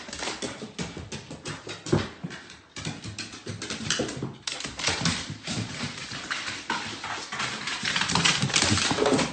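A dog's paws and claws clicking and knocking on wooden stairs, a quick, uneven run of footfalls.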